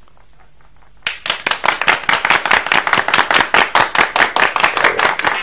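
Applause: a burst of many hands clapping that starts suddenly about a second in.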